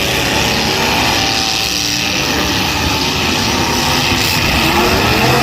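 Demolition derby car engines running and revving over a steady din, with one engine's pitch rising near the end.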